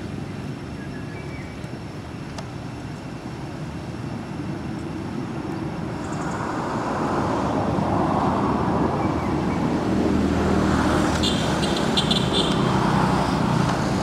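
Road traffic: a motor vehicle's engine rumbling, getting louder from about halfway through as it draws near.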